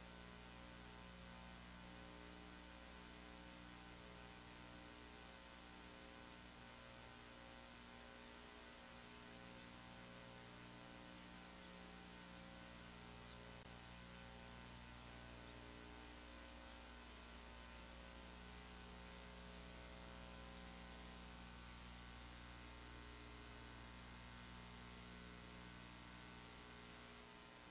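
Near silence: a faint, steady electrical mains hum with a stack of overtones.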